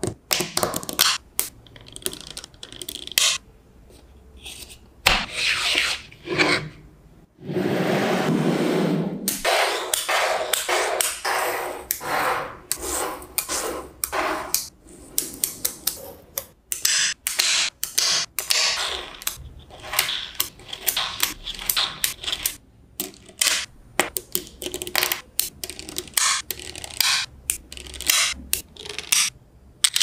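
Small magnetic balls clicking and snapping together and scraping across the surface as strips of them are laid and pressed into place by hand, in quick irregular clusters of clicks. About seven seconds in comes a steadier rattle lasting about two seconds.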